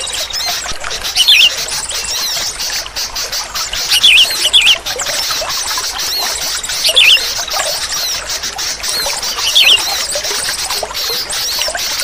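Sooty-headed bulbul (kutilang) calling: a short, loud, bubbling phrase four times, about every three seconds, over a constant high chatter of many chirping birds.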